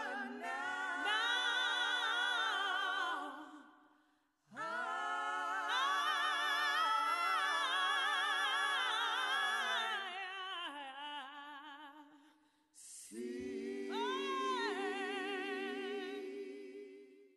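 Voices singing unaccompanied in three long phrases of held notes with vibrato, with short breaks between the phrases.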